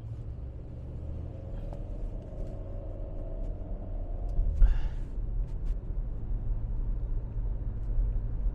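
Road and engine rumble inside a moving car's cabin, steady and low, with a faint rising whine in the first few seconds and a short breathy hiss about halfway through.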